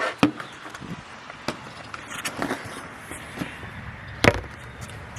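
Scattered clicks and light knocks of hands working around a vehicle, with one sharp knock about four seconds in; no engine running.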